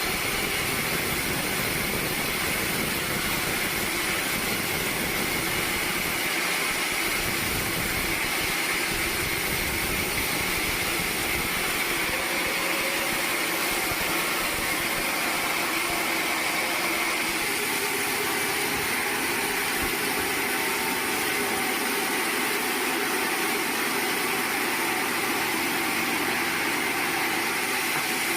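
Sawmill machinery running steadily: an even, unbroken mechanical noise with a constant high hum running through it.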